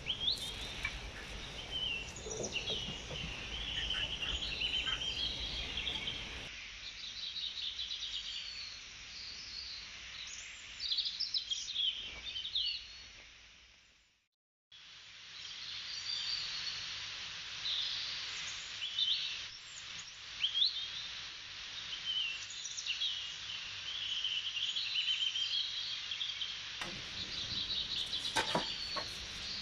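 Recorded nature birdsong: many small birds chirping over a steady outdoor hiss. It fades out about halfway through, drops to silence for a moment, then starts again.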